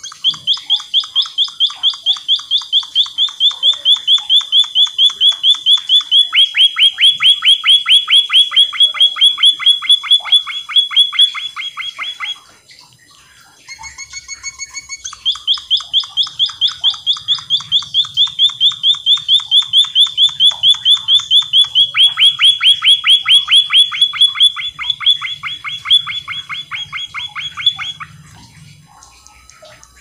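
A caged munia singing: two long runs of rapid, evenly repeated high notes, several a second, separated by a short pause about halfway. Partway through each run the notes drop to a lower, fuller tone.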